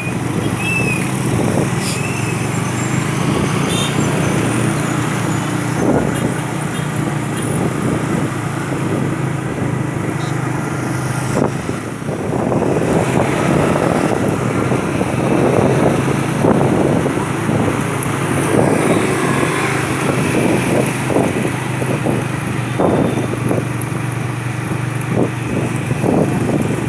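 Continuous motor-vehicle engine and road-traffic noise: a steady low engine drone under a noisy haze that grows busier about halfway through.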